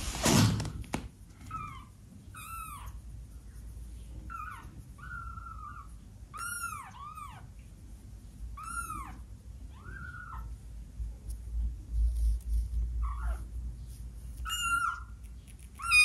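A 12-day-old kitten mewing: about ten short, high, arched mews at uneven intervals, some in quick pairs. A soft thump sounds right at the start.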